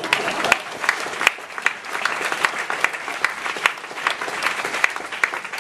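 Applause from an audience and the cast: a steady patter of many hands, with a number of sharper single claps standing out.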